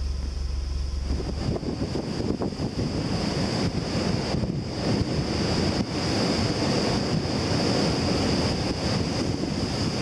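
Gusty tropical-storm wind rushing through palm trees and buffeting the microphone, rising and falling in gusts over a steady high hiss. A deep low rumble drops away about a second in.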